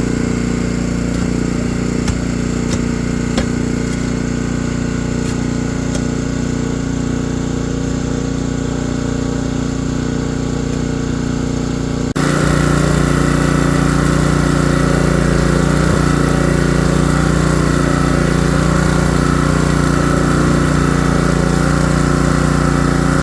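An engine running steadily, with a few light ticks near the start. About halfway through it changes abruptly and runs somewhat louder.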